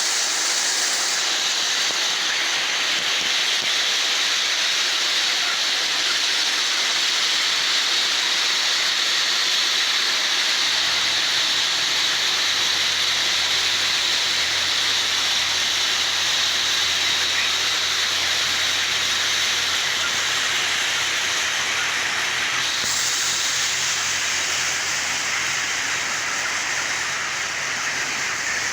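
Steady hissing noise, with a low hum joining about ten seconds in.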